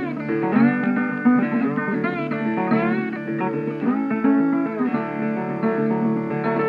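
Background music: guitar-led Americana instrumental with plucked and bent notes.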